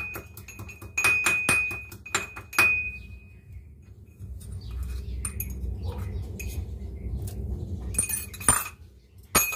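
Metal kitchenware clinking: a quick run of clinks with a ringing note for the first few seconds, then a low rumble, and two more sharp clinks near the end.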